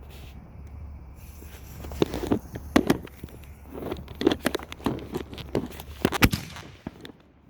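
Consumer firework going off: a short fuse hiss, then a run of sharp pops and cracks ending in one louder bang about six seconds in. The firework went off on its side.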